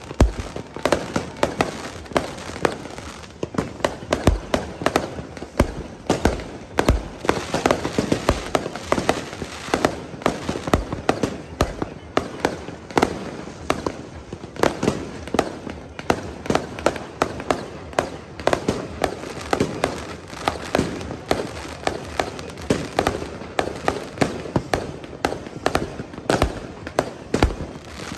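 Fireworks going off densely: a continuous barrage of sharp bangs and pops, several a second with no break.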